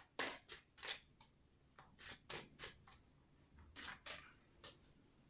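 Tarot deck being shuffled from hand to hand: a dozen or so quick, irregular, soft swishes and slaps of cards.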